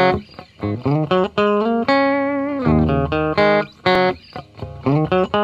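Plucked guitar music: a run of single picked notes, each ringing and dying away, with one note held longer about two seconds in.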